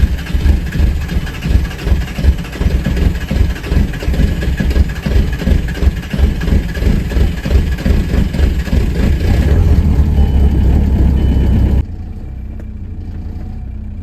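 Volkswagen 1.9 TDI (ALH) turbo-diesel running just after a cold start, with a loud, rapid, uneven diesel clatter. About twelve seconds in the sound drops suddenly to a quieter, steady running.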